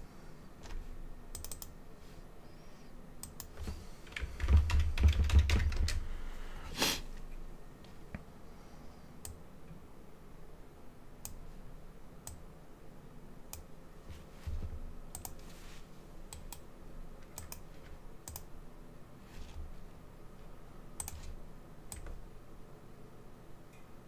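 Computer keyboard typing: scattered keystrokes and short runs, with a louder stretch of keys over a low thud about four to six seconds in.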